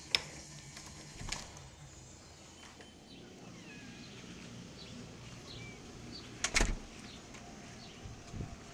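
Door latch clicking as the knob is turned and the door opens, then a quiet backyard with several short, high bird chirps. A loud knock about six and a half seconds in, and a smaller one near the end.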